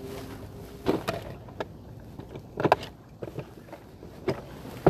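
A handful of short, sharp knocks and clicks at irregular intervals, the loudest about two and a half seconds in.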